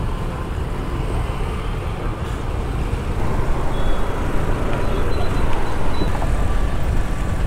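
Motorcycle running in city traffic, heard from the rider's seat as a steady rumble with wind on the microphone. It grows a little louder about three seconds in, as the bike is ridden along the road.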